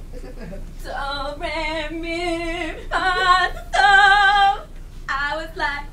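A teenage girl singing unaccompanied, starting about a second in, holding long notes with a wide vibrato and short breaths between phrases.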